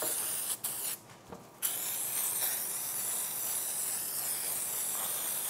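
Aerosol can of carb cleaner spraying over a bank of snowmobile carburettors for a preliminary cleaning. The spray stops briefly twice in the first second and a half, then runs as one long, steady spray.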